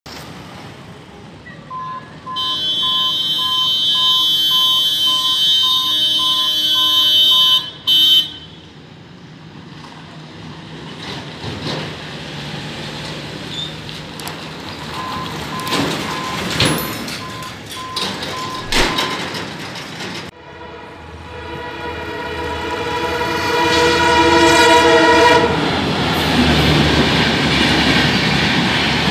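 Express passenger train sounding a long multi-tone horn as it approaches a level crossing, then rushing past with rising rail and wheel noise. Before that, a long high-pitched tone with a beeping pulse over it.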